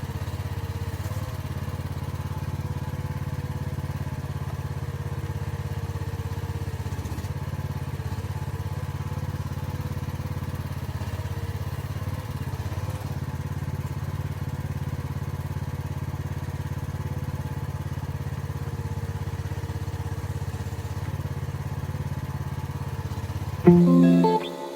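Small engine of an AGT MX12R 1-ton mini excavator running at a steady speed. Guitar music comes in suddenly near the end, louder than the engine.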